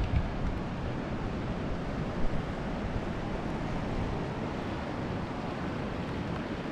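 Steady wind noise on the microphone over water washing along a kayak on a slow river.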